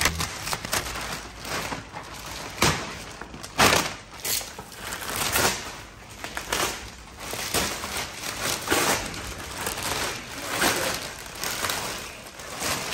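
Thin plastic shipping cover crinkling and rustling in irregular bursts as it is pulled and bunched off a new motorcycle.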